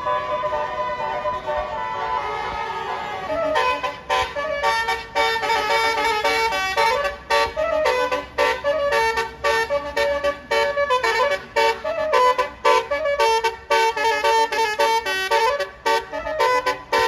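Bus telolet basuri horn, a multi-note musical horn, playing a tune: a held chord for about the first three and a half seconds, then quick short notes stepping between pitches with brief gaps.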